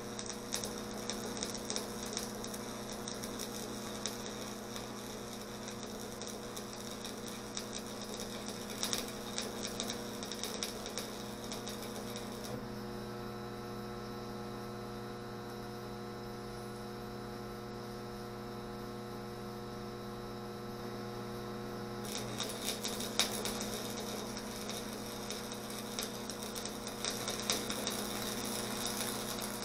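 Stick (shielded metal arc) welding on steel plate: the arc crackles and sizzles over a steady mains hum. The arc stops about twelve seconds in, leaving only the hum, and is struck again about ten seconds later.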